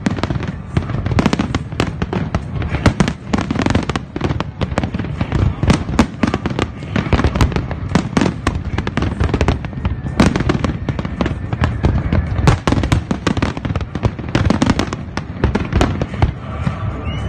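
Fireworks display: aerial shells bursting in rapid, overlapping bangs and crackles, many a second, easing off near the end.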